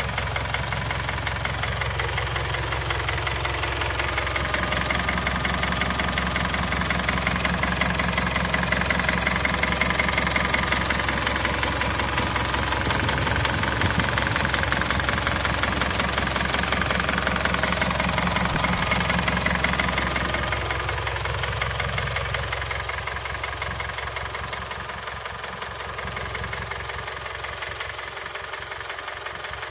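Isuzu 4JJ1-TC four-cylinder turbo-diesel running with a steady, even diesel clatter. It grows louder for about fifteen seconds in the middle, then eases back.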